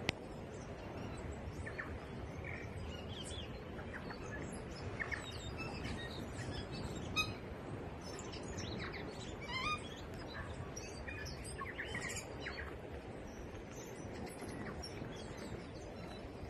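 Several small birds chirping and trilling in short scattered calls over a steady low background rumble.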